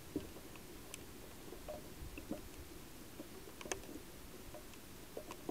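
Faint scattered clicks and ticks at irregular intervals, about one a second, over a low steady hiss; the sharpest click comes about two-thirds of the way through.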